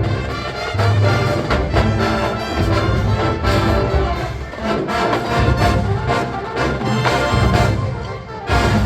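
College marching band playing a funk arrangement: the brass section carries the tune over a steady, pulsing beat from the drums. The sound dips briefly near the end, then the full band comes back in.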